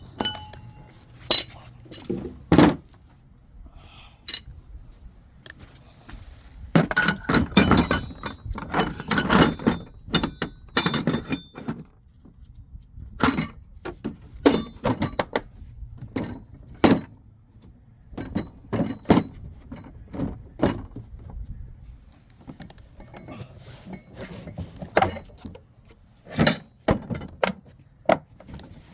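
Steel hand tools and tool-kit pieces clinking and clanking as they are picked up, moved and set down, with many separate sharp metallic knocks, busiest in two flurries in the first half.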